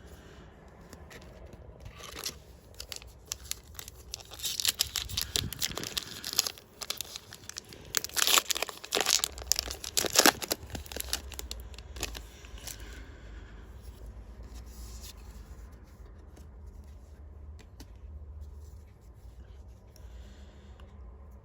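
A foil trading-card booster pack being torn open and crinkled, loudest about eight to ten seconds in, followed by quieter rustling.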